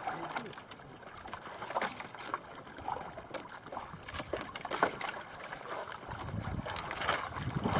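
Water lapping against a small wooden outrigger boat, with scattered light knocks and clicks.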